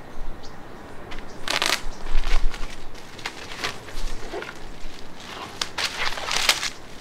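Clear plastic wrapping crinkling and rustling in irregular bursts as it is peeled off a new stretched canvas.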